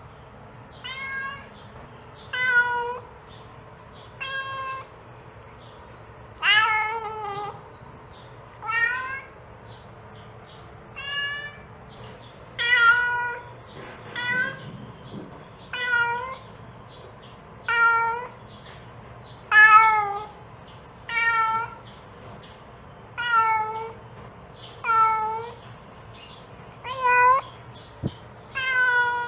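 A mother cat meowing over and over, calling her kittens: about sixteen calls, one every second and a half to two seconds, each lasting about a second and some dipping in pitch at the end.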